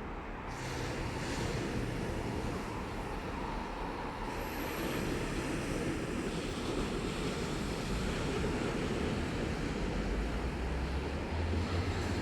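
Sea surf washing steadily on the shore, mixed with wind, as a continuous rushing noise with a deep rumble beneath.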